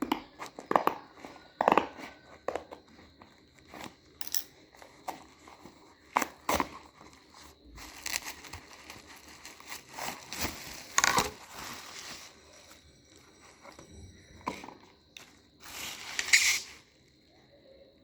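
Packaging being handled and opened: crinkling and rustling of wrapping with irregular clicks and tearing, including a few longer rustles near the middle and again near the end.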